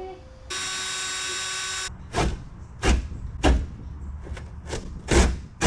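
A power tool runs steadily for about a second and a half. It is followed by a string of about seven sharp knocks and cracks, the sound of rotted boat floor being broken and pried out.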